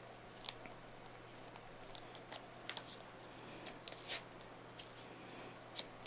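Hobby knife blade cutting the seal on a small white paperboard box: a scattered series of short, sharp scratching clicks and snips, with a couple of faint squeaks.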